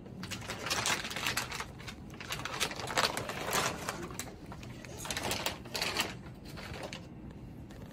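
Clear plastic peritoneal dialysis solution bag crinkling and rustling as it is handled and set on top of the cycler, in irregular bursts with the loudest around a second, three and five to six seconds in, dying down near the end.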